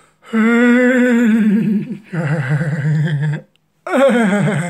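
A man vocalizing loudly in three long held notes that waver up and down, with short breaks between them; the second note is lower than the first and third.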